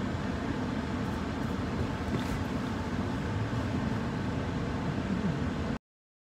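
Steady low rumble and hiss inside a stationary car with its engine running. The sound cuts off abruptly near the end.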